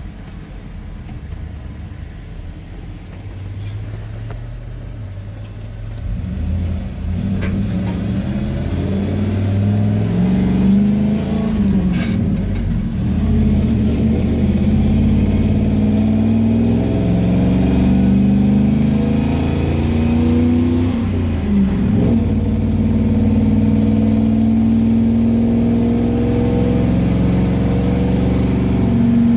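A 1980 Chevy C30 rollback truck's swapped-in 8.1-liter Chevy V8 pulling under load, its pitch climbing and then dropping several times as it accelerates through the gears. It gets louder about six seconds in.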